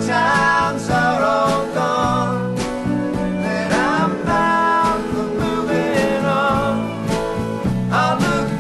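Country-style music: acoustic guitar with a wavering melody line carried above it.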